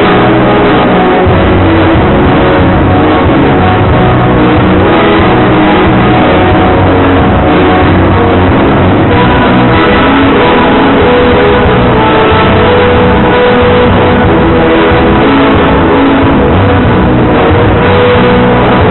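Gaúcho dance band playing loud, continuous dance music with plucked guitar to the fore.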